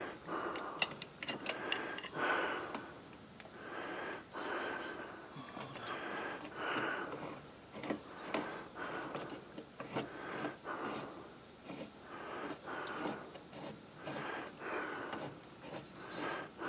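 A person's quick, even breathing close to the microphone, one breath about every second, with a few sharp clicks in the first two seconds.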